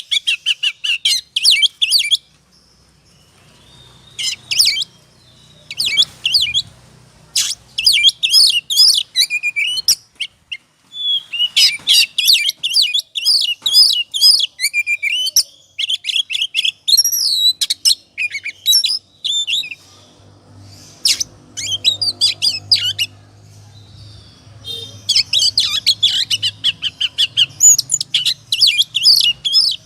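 Oriental magpie-robin (kacer) singing in loud, rapid bursts of varied high whistles and chattering notes, broken by short pauses and a longer lull about two-thirds through. It is the aroused 'ngobra' song of a bird in display, used as a lure to provoke other magpie-robins into singing.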